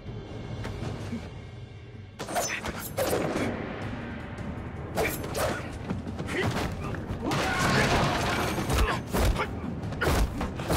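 Staged fight sound effects: a string of sharp blows and body impacts starting about two seconds in, then furniture crashing and breaking, with heavy thuds near the end, over background music.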